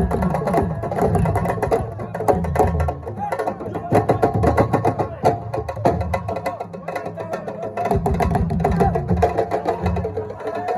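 Music with dense, fast percussion strokes and a melodic line over them.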